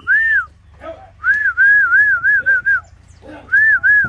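A person whistling loudly in short rise-and-fall notes, repeated in quick runs: one note, then a run of about six, then two more. It is a herding whistle to urge balking cattle forward through the corral.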